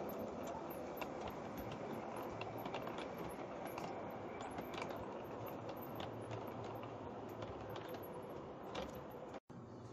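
LGB garden-scale model train rolling slowly past, a steady running noise with light, irregular clicks and rattles of its wheels on the track. The sound cuts out for an instant near the end.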